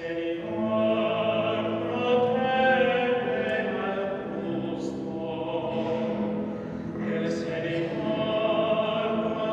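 Congregation of bishops singing a hymn together, mostly men's voices on long held notes.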